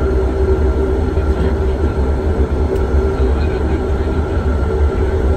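Cabin sound of a De Havilland Dash 8-400 turboprop rolling along the runway: a steady engine and propeller drone over a heavy low rumble of wheels and airframe.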